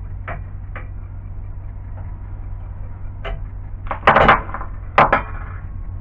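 Metal parts being handled on a CNC mill's aluminium base plate and linear-rail carriages: a few light clicks, then a loud rattling clatter about four seconds in and two sharp metal knocks about a second later, over a steady low hum.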